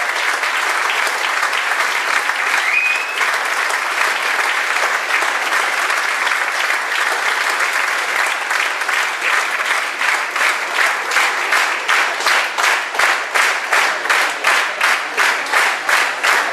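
Audience applauding: steady applause that, about ten seconds in, turns into clapping in unison, about two and a half claps a second.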